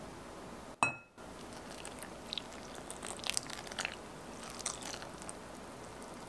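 Milk and yeast mixture poured from a small jug into a glass bowl of dry flour, with irregular soft crackling as the liquid hits and soaks the flour. A short ringing clink comes about a second in.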